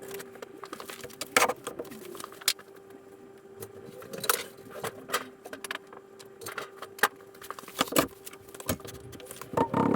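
Scattered metallic clinks and knocks of steel stock being handled and clamped at a metal chop saw between cuts, busier and louder near the end, over a faint steady hum.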